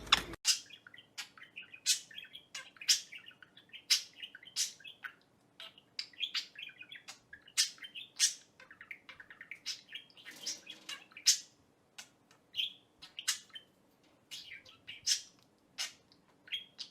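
Pet bird chirping: many short, sharp, high-pitched chirps in an irregular series, a few a second.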